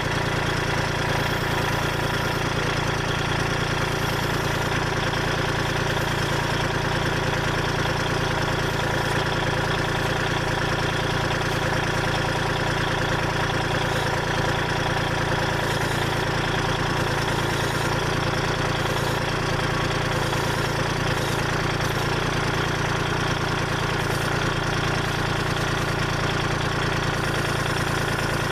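Kubota L2501 compact tractor's three-cylinder diesel engine running at a steady, unchanging speed.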